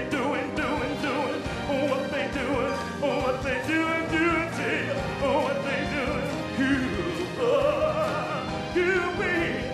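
A live band playing, with drums and electric guitars, under a voice that holds long notes with vibrato.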